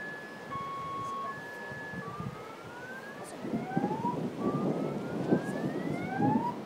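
An electronic siren cycling through tones: a high-low two-tone alternation for about two seconds, then a run of rising whoops, each about a second and a half long. Low rumbling noise sits under the second half.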